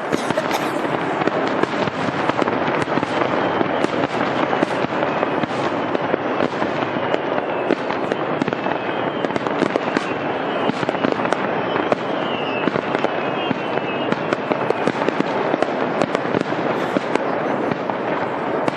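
Fireworks going off in a dense, unbroken barrage: rapid crackling packed with sharp pops. A faint falling whistle comes through in the middle.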